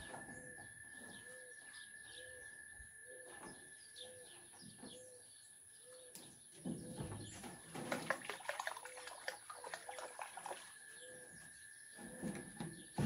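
Birds calling faintly: a low, evenly repeated coo about twice a second, with chirps of other birds over it.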